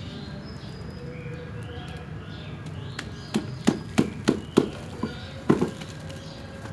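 A quick run of about seven sharp knocks and thumps in the second half, from gloved hands handling and pressing a dense, root-bound aglaonema root ball. Birds chirp repeatedly in the background throughout.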